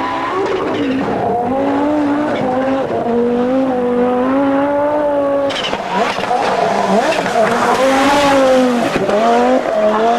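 Audi Sport Quattro S1 Group B car's turbocharged five-cylinder engine running hard at high revs, its note dropping briefly and climbing again several times through gear changes or lifts. A rushing noise joins in from a little past halfway for about three seconds.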